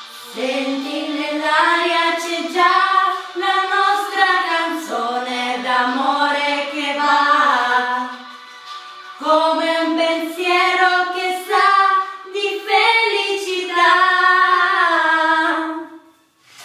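A woman and a boy singing together without accompaniment, in phrases with a short break about nine seconds in, stopping just before the end.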